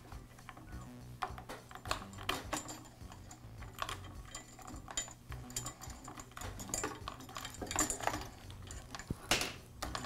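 Irregular light clicks, taps and rustles of electrical wires and their crimp connectors being handled and pulled out through the cord clamp of a drain auger's motor box.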